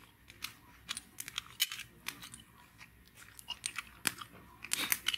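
Close-miked chewing of a mouthful of freshly cut grilled food: irregular crunching clicks that come in spurts.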